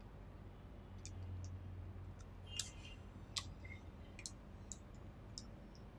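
Faint squeaks and ticks of a marker drawing on a glass lightboard: a dozen or so short, irregular sounds, the sharpest about two and a half and three and a half seconds in, over a low steady hum.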